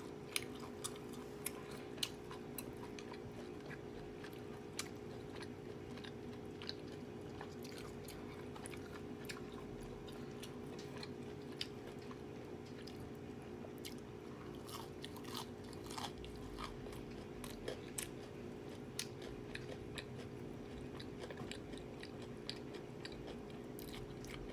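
Close-up eating sounds: a person chewing food, with scattered short wet mouth clicks over a steady hum.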